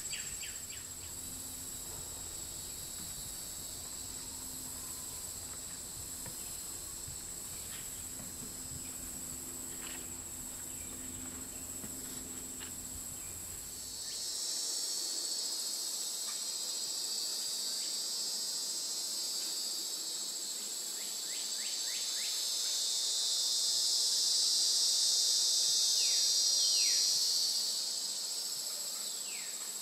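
Steady high-pitched insect chorus of swamp insects trilling. A second, slightly lower insect chorus joins about halfway through and grows louder before easing near the end. A few short falling bird chirps sound over it.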